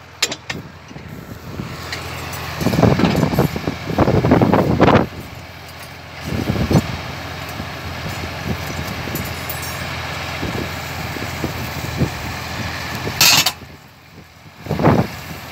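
An engine running steadily, powering machinery, with rough, louder noisy swells about three to five seconds in and a short sharp noise near the end.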